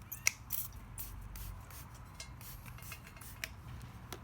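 A series of sharp clicks and short hissing bursts as the tire bead is wetted with lubricant to ease it off the rim.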